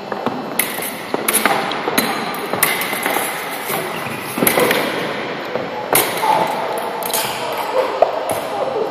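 Sharp, irregular clicks and knocks from a fencing bout on a gym floor: blades meeting and fencers' feet stamping during advances and lunges.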